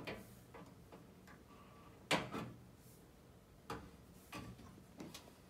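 Greased brass tuning slides of a tuba being pushed back into their tubes by hand: a series of short knocks and metal clunks, the loudest about two seconds in.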